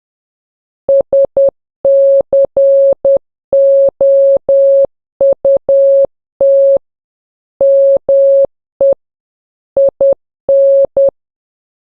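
Morse code sent as a single steady mid-pitched beep keyed in short dits and longer dahs, grouped into letters with short pauses and a longer word break about two-thirds of the way through. The first word reads as SCOUT (... -.-. --- ..- -).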